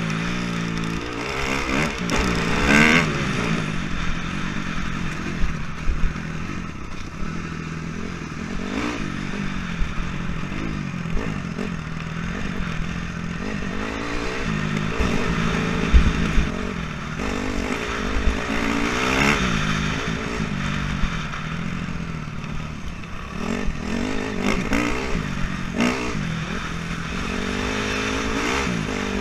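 Honda CRF250R dirt bike's single-cylinder four-stroke engine riding over rough grass track, its pitch rising and falling over and over with throttle and gear changes. Scattered knocks and rattles from the bike over bumps.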